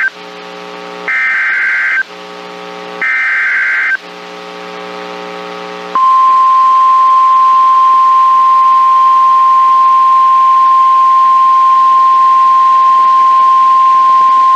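NOAA Weather Radio EAS alert signal, received through a TFT EAS 911 receiver: two short bursts of warbling SAME header data, about a second apart, with a low buzz between them. From about six seconds in comes the steady single-pitch 1050 Hz warning alarm tone, which announces a new severe thunderstorm warning.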